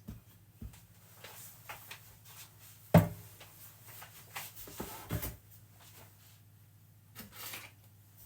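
Knocks, clunks and rubbing from a food processor's bowl, lid and blade being taken apart, with a sharp knock about three seconds in and another about five seconds in.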